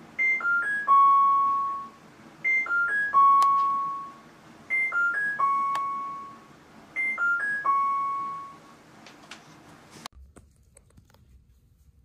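Whirlpool washing machine's end-of-cycle tune: a short four-note electronic melody ending on a long, lower held note, played four times about two seconds apart, signalling that the wash cycle has finished.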